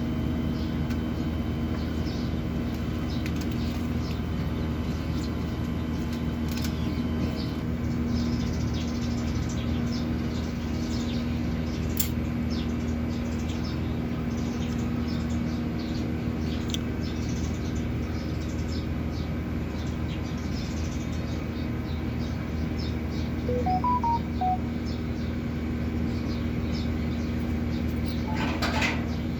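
Split-type air conditioner's outdoor unit running with a steady hum from the compressor and fan during a pump-down, drawing the refrigerant back into the condenser.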